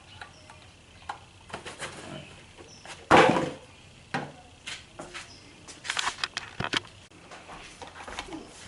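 Handling noise of smart deadbolt lock parts: scattered clicks and knocks as the pieces are picked up and set down, with one louder thump about three seconds in and a quick run of clicks around six seconds in.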